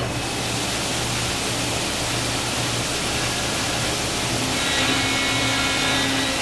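CNC milling machine cutting an AR-15 lower receiver: a loud steady hiss comes on suddenly at the start over a constant hum, and a pitched cutting whine with several tones joins about four and a half seconds in.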